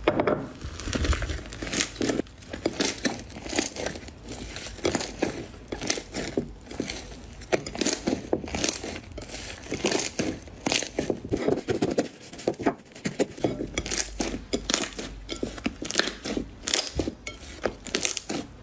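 Blue slime being stretched, kneaded and squeezed by hand in a bowl: a continuous, irregular run of sticky crackles and pops.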